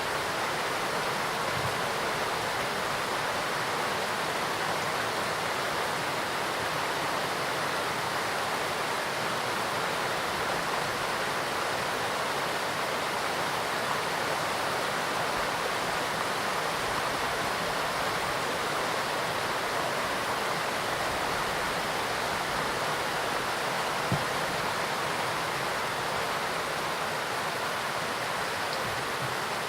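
Steady rushing of a large waterfall with a heavy flow of water plunging into a river, an even, unbroken noise of falling and running water.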